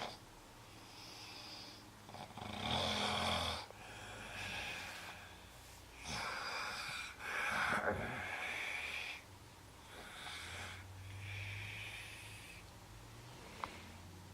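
Snoring: a slow run of noisy in- and out-breaths, loudest about three seconds in and again around eight seconds, with quieter breaths between. A short sharp click comes near the end.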